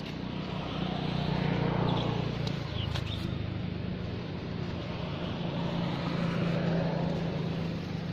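Engine of a passing motor vehicle, a steady low hum that swells and fades twice. A few faint short chirps sound over it about three seconds in.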